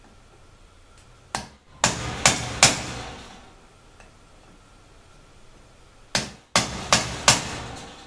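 Metal-on-metal hammer blows: a camp axe struck against a small metal rod held to a small aluminum cooking pot, cold-forging the metal to seal pinholes in it. Two runs of four quick blows, each ringing briefly, the first starting about a second in and the second about six seconds in.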